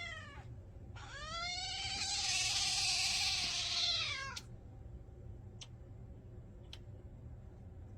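A cat meowing: the end of one meow, then a long drawn-out meow of about three seconds that rises and falls in pitch. A few faint clicks follow.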